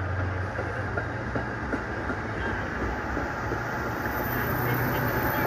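Amtrak passenger train rolling past, its wheels clicking over rail joints now and then over a steady low diesel engine hum that grows louder near the end.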